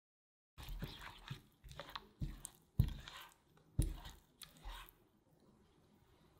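Silicone spatula stirring melting milk chocolate into thick berry puree in a saucepan: irregular wet stirring and scraping with several sharp knocks of the spatula against the pan, stopping about five seconds in.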